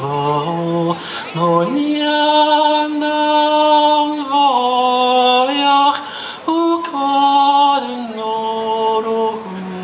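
A man singing a Scottish Gaelic song solo and unaccompanied, in long held notes that glide between pitches, with short breaks between phrases about a second in and about six seconds in.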